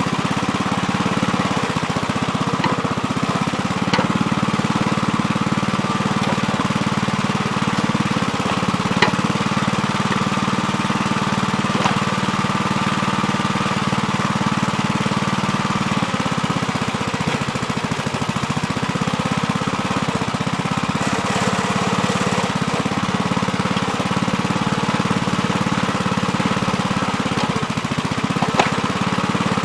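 Gravely Terramite compact backhoe's engine running steadily while digging, its note shifting about halfway through. A few sharp knocks are heard over it, the loudest near the end.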